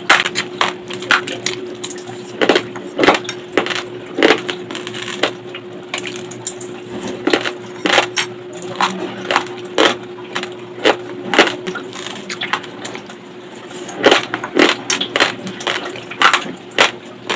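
Raw long-grain rice being chewed close to the microphone: a rapid, irregular run of sharp, dry crunches as the hard grains crack between the teeth.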